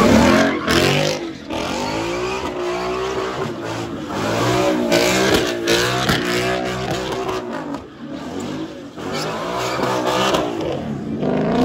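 Ford Mustang doing donuts: its engine revs rise and fall in several surges over the screech of spinning tyres.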